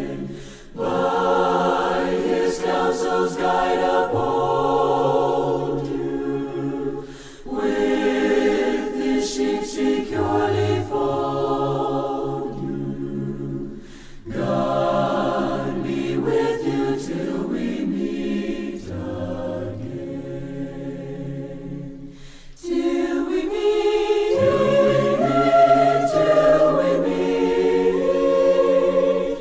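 A choir singing a slow hymn a cappella, in long held phrases with short breaks between them.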